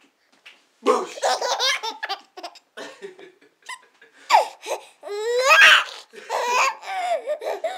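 Baby laughing from the belly in repeated bursts, starting about a second in, with the longest, loudest laugh a little past the middle.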